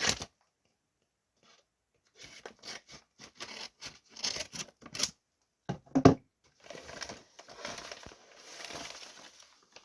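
A shipping package being cut and torn open, starting about two seconds in: a run of scratchy tearing and crinkling of the packaging, with one sharper, louder sound about six seconds in.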